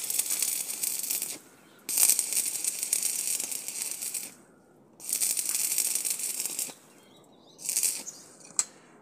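Electric arc welding, crackling and sizzling in runs of one to two seconds separated by short pauses, with a brief final burst near the end.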